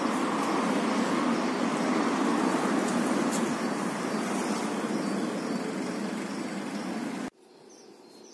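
Steady street traffic noise, which cuts off abruptly about seven seconds in to a much quieter background with faint bird chirps.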